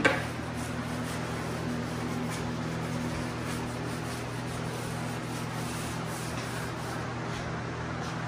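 A brief knock at the start, then faint rubbing strokes of a plastic wallpaper smoother across cork wallcovering over a steady low hum.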